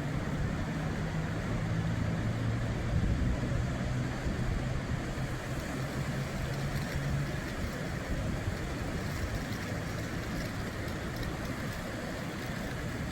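A motor vehicle engine running steadily over a constant noisy hiss; the engine hum fades about seven seconds in.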